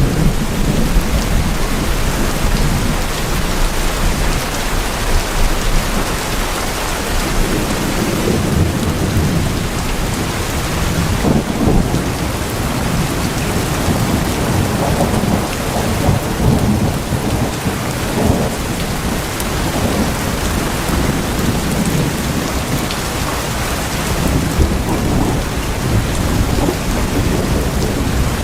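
Steady heavy rain falling on tin sheeting, with low rolling rumbles of thunder underneath, swelling through the middle.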